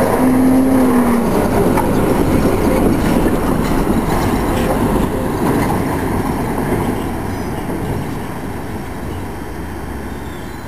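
Electric tram running on street track close by, with a steady tone through about the first second as it takes a curve, then its rumble fading away over the last few seconds as it recedes.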